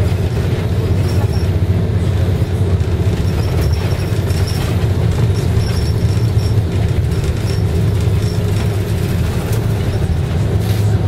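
Steady low drone of a bus's engine and road noise heard from inside the passenger cabin, with a few faint rattles.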